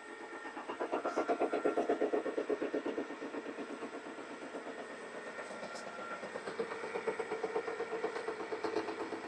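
Deckel FP2 milling machine taking a cut in a cast iron block, the rotating cutter striking the metal in a fast, even pulse. It grows louder about a second in, eases off in the middle and builds again near the end.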